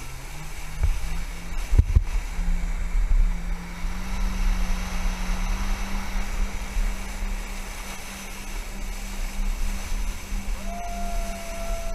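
Jet ski engine running steadily under way, its pitch stepping up twice in the first few seconds as the throttle opens and then holding, with wind and water rumbling on the microphone. About ten seconds in, a high held note sounds for about a second.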